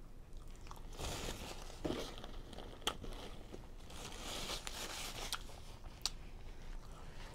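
Paper napkin crinkling and rustling as it is handled and wiped across the hands, in two spells, about a second in and again midway, with a few sharp clicks between.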